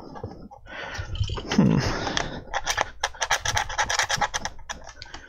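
Screwdriver tip scraping and ticking against the plastic underside of an old router case, with a quick run of small clicks in the middle.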